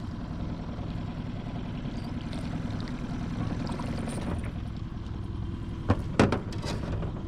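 A boat motor running steadily with a low hum, as the jon boat trolls. About six seconds in come two sharp knocks close together, the loudest sounds here.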